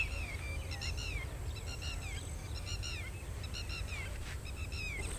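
Birds calling in farmland: clusters of short, falling chirps repeating about once a second, over a steady low rumble.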